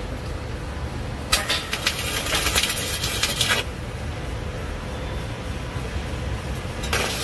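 Electric arc welding: the welding arc crackles and sizzles in a burst of about two seconds starting just over a second in, stops, then strikes up again near the end, as steel is welded in place overhead.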